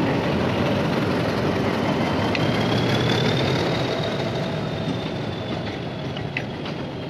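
Ooty toy train's open maintenance wagons rolling past on metre-gauge track behind a diesel locomotive, a steady rumble that fades as the last wagon goes by. A thin high whine comes in about two seconds in, with a few clicks near the end.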